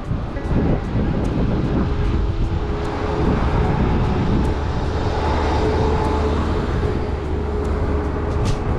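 A motor vehicle's engine running steadily, a constant low drone with a held tone above it.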